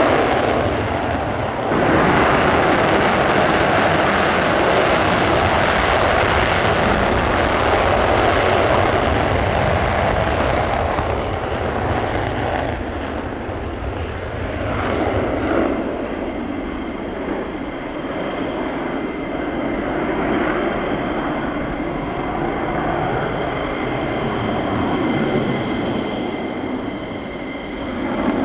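F-15E Strike Eagle's twin Pratt & Whitney F100 turbofans on full afterburner for takeoff: a loud, steady jet roar that loses its hiss after about twelve seconds as the jet climbs away. Steady high whistling tones join about halfway through.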